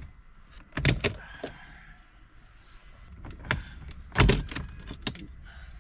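Plastic dashboard side trims being pried off, their retaining clips letting go in several sharp snaps. The loudest comes just after four seconds in.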